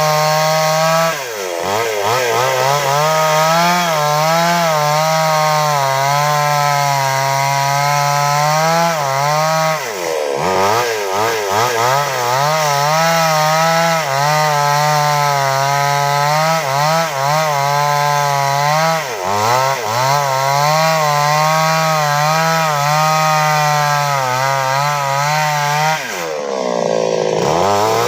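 Two-stroke chainsaw running at high revs while cutting a large sengon log, its engine pitch wavering under the load of the cut. Four times the revs drop briefly and climb back.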